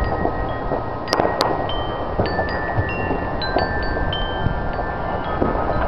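Wind chimes ringing with clear, held notes at several pitches over a rumble of wind on the microphone. About a second in come two sharp firework cracks in quick succession.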